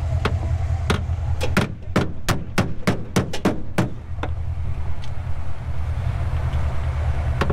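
About a dozen hammer blows on the steel rear fender arch of a Datsun 510, struck in quick irregular succession over the first four seconds, to push the fender lip out for tyre clearance. A steady low rumble runs underneath.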